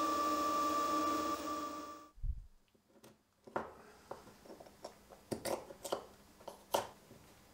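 Milling machine running with a steady whine and hum while a drill bit bores into a metal block, cutting off suddenly about two seconds in. After a low thump, a series of light metallic clicks and taps as a metal rod is slid into the machined block.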